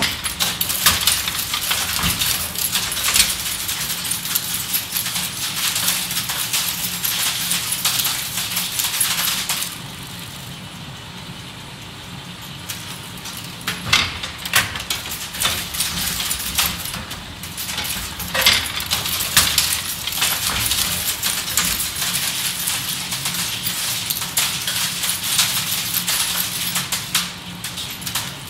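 Hot-metal line-casting typesetting machine running as the operator types: dense metallic clicking and clattering of its matrices and mechanism over a steady motor hum, easing off for a few seconds about ten seconds in.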